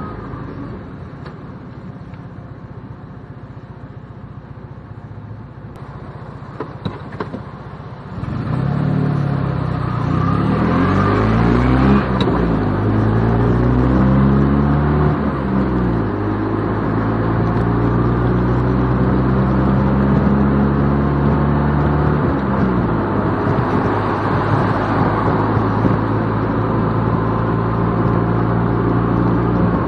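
Classic Fiat 500's air-cooled two-cylinder engine heard from inside the cabin, running quietly at first with a few clicks, then from about eight seconds in pulling hard, its pitch climbing and dropping through several upshifts before settling to a steady cruise.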